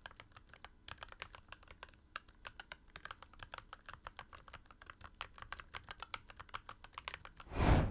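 Typing on a mechanical keyboard fitted with POM keycaps: a fast, steady run of key presses, several clicks a second. A brief louder rush of noise comes near the end.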